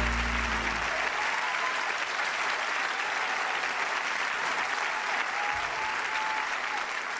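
A large audience applauding, with a few scattered whoops, as the band's last low held chord cuts off about a second in.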